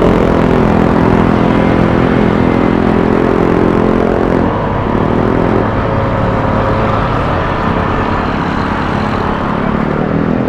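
Vespa S 125 scooter engine running at a steady cruising speed while riding, with a short change in revs about four and a half seconds in, over a steady rushing noise.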